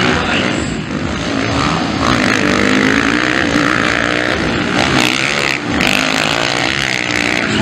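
Motocross dirt bike engines revving on the track, their pitch rising and falling as the riders work the throttle and shift.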